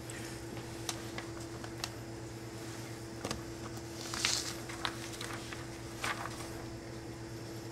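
A steady machine hum, with scattered light taps and short rustles of cloth and paper being handled on a cutting table; the loudest rustle comes about four seconds in, another about six seconds in as a printed paper sheet is picked up.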